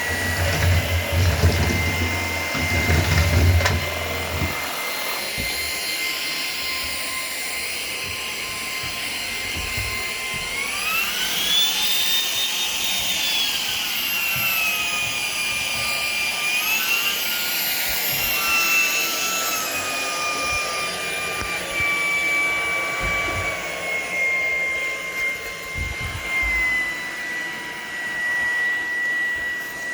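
Shark PowerDetect cordless vacuum running with a steady high motor whine, with a low rumble for the first few seconds. About ten seconds in the motor speeds up sharply, rising in pitch, then slows back down in steps to its first speed over the next fifteen seconds as its power setting changes.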